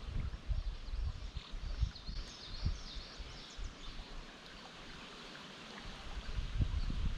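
Creek water running, with small birds chirping and intermittent low rumbles.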